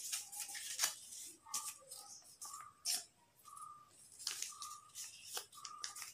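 Scissors snipping through folded paper in short, separate cuts, a handful of snips spread over several seconds.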